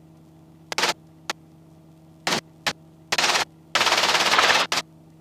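Short bursts of hiss-like static and sharp clicks over an aviation headset intercom and radio feed, irregular and each a fraction of a second long, with one longer burst of nearly a second about four seconds in. Under them runs a faint steady electrical hum.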